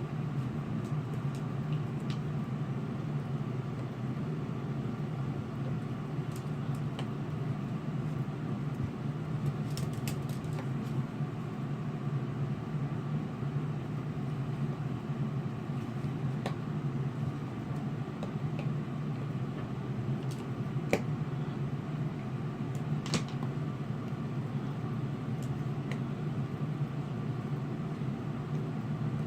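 Steady low mechanical hum, with scattered faint clicks and taps.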